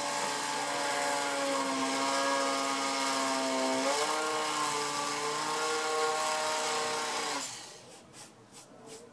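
A small electric motor runs steadily with a pitched hum and hiss. Its pitch steps up slightly about four seconds in, then it winds down and stops, followed by a few light clicks.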